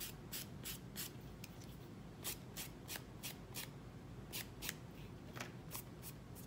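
A file scraping along the grip-taped edge of a fingerboard deck in short, quick strokes, about three a second, in runs with brief pauses. The file is barely taking the grip down.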